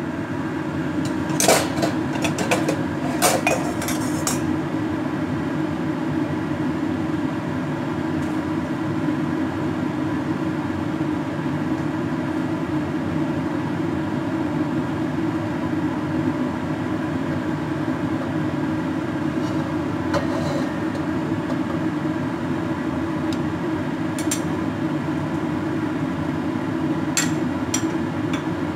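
Steady low mechanical hum at the stove, with a few sharp clinks of kitchenware about one and a half and three seconds in and a few more near the end.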